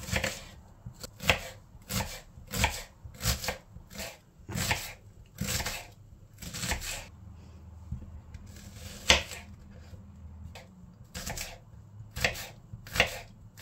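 Kitchen knife dicing an onion on a wooden cutting board: sharp knocks of the blade on the board, two or three a second at first, thinning out to a few scattered strokes in the second half.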